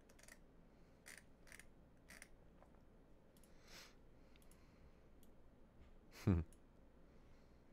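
Faint scattered clicks, with one short, dull thump about six seconds in.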